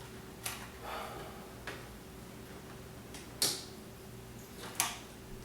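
Kawasaki KFX 400 quad's starter solenoid clicking a few times at uneven intervals as the starter button is pressed, with no cranking: a no-crank fault.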